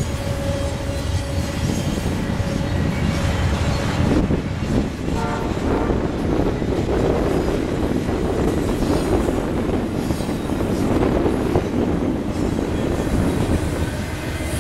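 Double-stack intermodal freight train rolling past: a steady rumble and rattle of the cars on the rails, with wind buffeting the microphone. A faint steady whine fades out about four seconds in.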